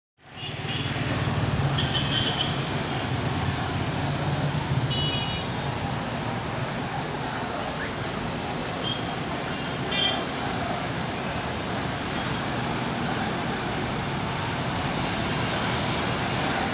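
Road traffic on a busy street, with cars and motorbikes running past in a steady wash of engine and tyre noise. A few short horn toots come through, near two, five and ten seconds in.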